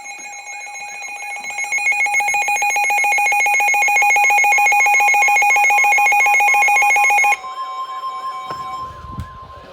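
Emergency alert warning tones: a loud, rapidly pulsing electronic alarm that cuts off suddenly about seven seconds in, leaving a steady single alert tone sounding on its own until near the end.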